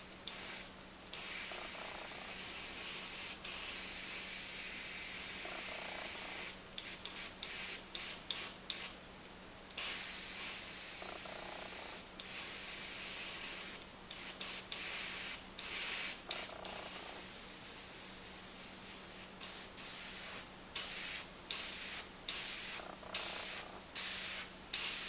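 Airbrush hissing as it sprays paint, in spells of several seconds early on and then in many short bursts of a second or less as the trigger is tapped, over a steady low hum.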